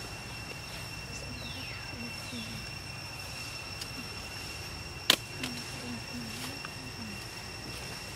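Outdoor ambience: a steady high-pitched drone of two even tones over a low rumble, with a short falling whistle near two seconds in and faint low short calls here and there. A single sharp click about five seconds in is the loudest sound.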